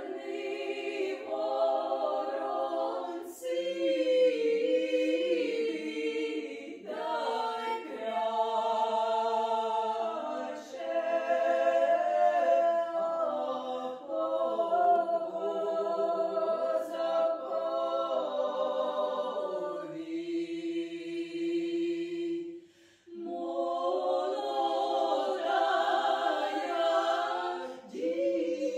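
Three women singing a cappella, several voices together in harmony, in long sung phrases. The song breaks off briefly about three quarters of the way through, then resumes.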